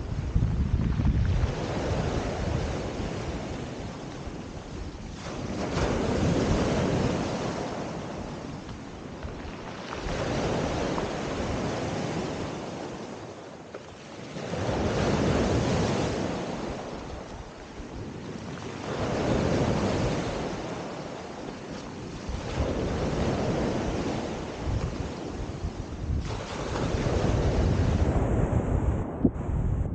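Sea surf breaking on a pebble beach, each wave swelling and fading about every four seconds.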